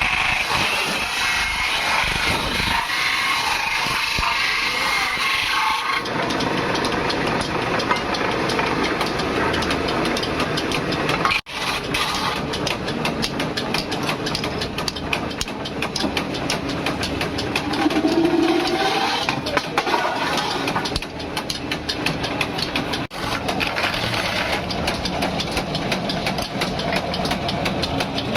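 Workshop machinery running with dense, rapid metallic clatter, as sheet metal from old oil drums is worked. The sound briefly drops out twice, at cuts.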